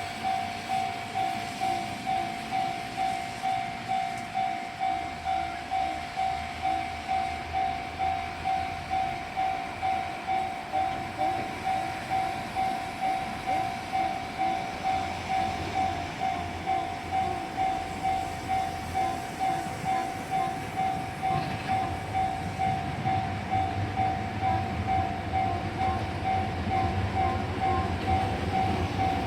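Japanese railway level-crossing warning signal ringing steadily in even, repeating strokes. About two-thirds of the way through, the rumble of an approaching train grows underneath it.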